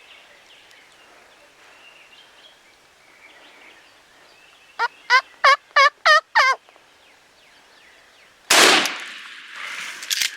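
A turkey gives a quick series of six loud yelping notes, then about two seconds later a single loud shotgun blast rings out with a trailing echo, followed by rustling.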